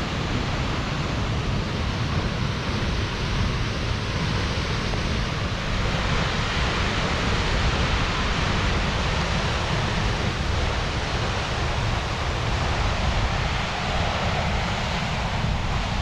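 Steinsdalsfossen waterfall, a high cascade pounding onto rocks, giving a steady, full rushing roar with a deep rumble underneath. Some wind on the microphone mixes into the low end.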